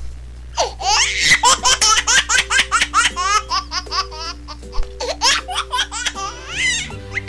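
A baby giggling and laughing in quick, rapid bursts over a light music track with held notes and a steady bass line.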